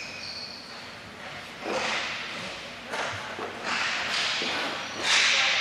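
Roller hockey skates and sticks scraping and clattering on the rink floor: four short noisy swishes, the loudest near the end.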